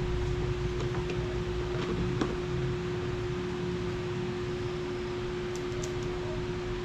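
Kawasaki ACK-302 high-pressure washer running, with a steady mid-pitched hum over a low rumble and an even hiss.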